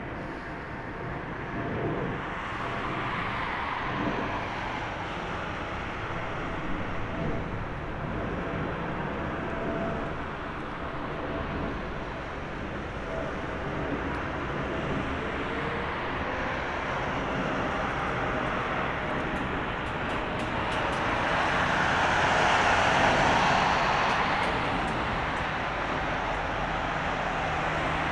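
Airbus A320 jet airliner on approach: a broad rushing engine noise that builds to its loudest about 22 seconds in, then eases slightly.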